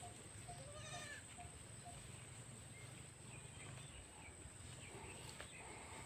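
A goat bleats once, briefly, about a second in. Faint short pips repeat about twice a second early on, over a thin, steady high whine.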